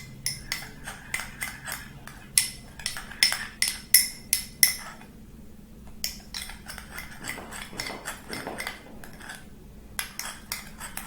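A spoon clinking against a small bowl while stirring honey into leaf-juice syrup. For the first five seconds there are quick ringing taps, about three a second. After a short lull the taps come more lightly and less often.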